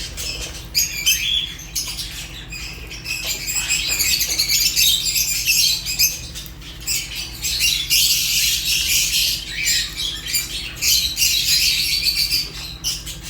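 A group of caged lovebirds, Fischer's and rosy-faced, chirping and chattering nonstop in dense, overlapping high-pitched calls, with a faint steady hum underneath.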